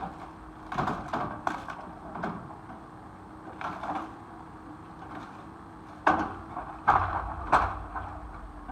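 An excavator's demolition grab tears into a building's metal frame, giving irregular crunches, creaks and clanks of breaking, falling material over the steady hum of the machine. The loudest crashes come about six seconds in and again about seven seconds in.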